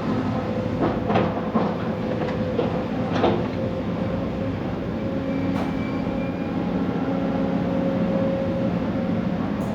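Heavy excavator's diesel engine running steadily under load, with a series of sharp knocks and clanks in the first few seconds from the working machine.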